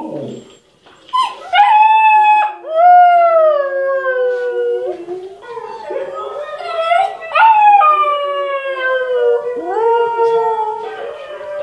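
Huskies howling: a run of long howls, each starting high and sliding slowly down in pitch, with more than one voice overlapping. The howls come partly from huskies on a television and partly from a husky puppy howling along near the end.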